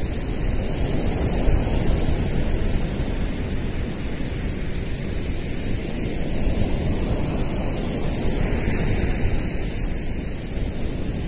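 Ocean surf washing in, mixed with wind buffeting the microphone: a steady rushing noise with no distinct events.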